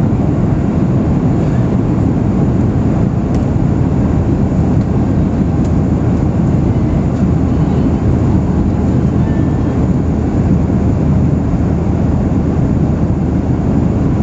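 Airplane in flight: a steady, even drone of engine and airflow noise with a low hum underneath.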